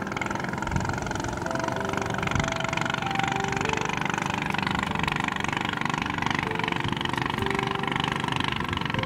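An engine running steadily at idle, a fast even pulsing drone, under soft melodic background music.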